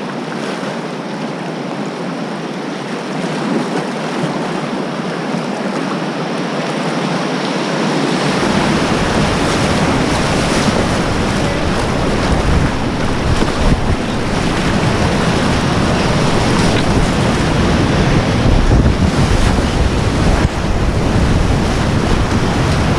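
Whitewater of a river rapid rushing steadily and slowly growing louder, with a deep rumble of wind on the microphone joining about eight seconds in.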